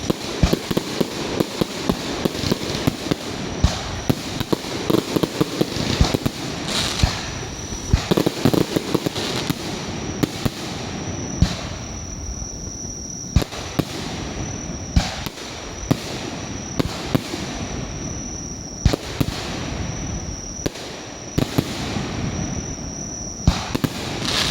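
Fireworks display: aerial shells bursting in sharp bangs, some singly and some in rapid crackling clusters, over a continuous rumble.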